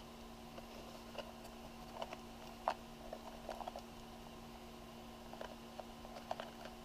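Light handling noises: scattered soft clicks and rustles as a small leather accessory case is held open and the Polaroid portrait attachment inside it is handled. A faint steady hum runs underneath.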